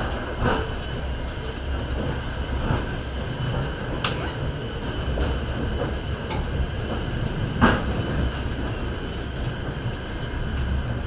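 Passenger train running, heard from inside the carriage: a steady rumble and rush of wheels on track. A few sharp clacks from the wheels cut through it, the loudest about three-quarters of the way through.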